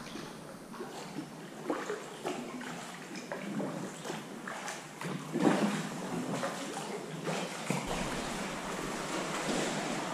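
Sea water sloshing and lapping irregularly around a sea kayak inside a sea cave.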